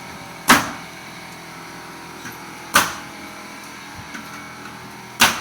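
Three sharp blows of nails being driven into wooden floor framing, each about two and a half seconds apart with a short ringing tail.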